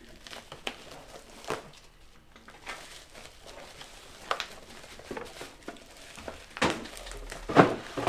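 Plastic packaging crinkling and rustling, with scattered light knocks, as a computer power supply is taken out of its wrapping. The sharpest handling clicks come near the end.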